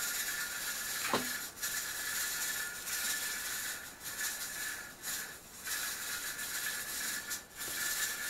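Pressure canner hissing steam steadily, the hiss dipping briefly a few times, with a short knock about a second in.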